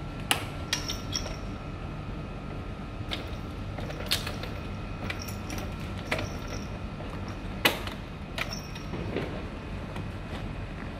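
A delivery bag's plastic clips clicking and knocking against a motorcycle's rear rack bracket as they are hooked on, a handful of sharp separate clicks, the loudest near the start and about three-quarters of the way through. A steady low hum runs underneath.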